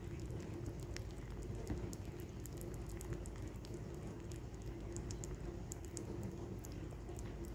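Rabbit chewing soft banana close up: irregular small wet clicks and smacks, several a second.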